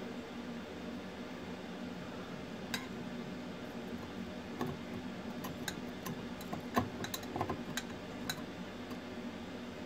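A metal blade scraping and clicking against the inside of a glass beaker as it breaks up a dried cake of acetylsalicylic acid crystals: scattered sharp clicks starting about three seconds in, over a steady low hum.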